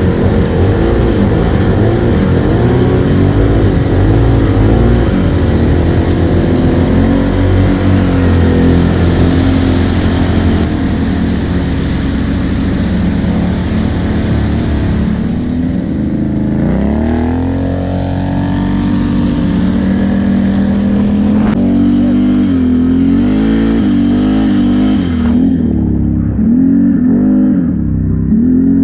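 ATV engine running under throttle, with water splashing for roughly the first ten seconds. The engine then revs up and down as the machine climbs, with a strong rise about sixteen seconds in and several quick rises and falls near the end.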